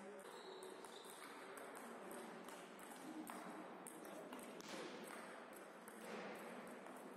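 Table tennis ball clicking off the bats and the table during a rally: a quick, uneven run of faint, sharp ticks.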